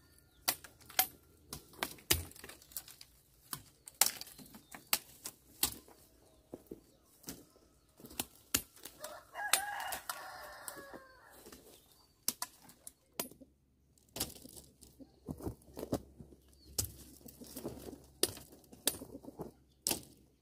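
A rooster crows once, about nine seconds in, a call of roughly two seconds. Irregular sharp knocks and clicks run all through and are the loudest sounds.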